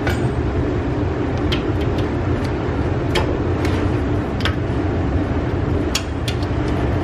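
A few sharp, separate metallic clicks as a ratchet with a 19 mm socket is worked on the brake caliper carrier bolts, over a steady low background hum.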